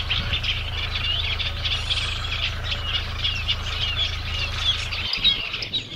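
Many small birds chirping in a busy, continuous chorus of short, quick notes, over a steady low hum that cuts off about five seconds in.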